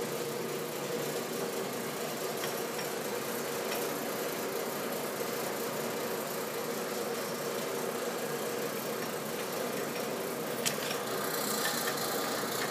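1960s VDF model V6 engine lathe running with its spindle turning: a steady mechanical hum from the headstock drive, with one sharp click about eleven seconds in.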